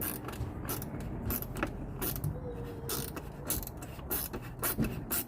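Small ratchet clicking in quick, irregular strokes as the headlight adjustment screws are tightened.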